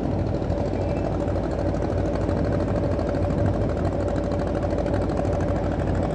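A motor boat's engine running steadily with a fast, even chugging.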